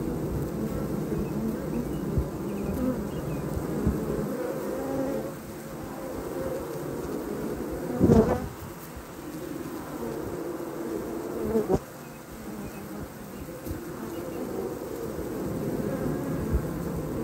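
Honey bees buzzing at a busy hive entrance: a steady hum of many wings, with a louder buzz swelling about eight seconds in and a shorter one near twelve seconds.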